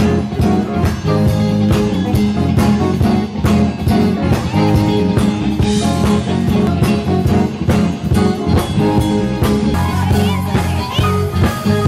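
Live band playing upbeat music with guitar and drums, with a steady beat.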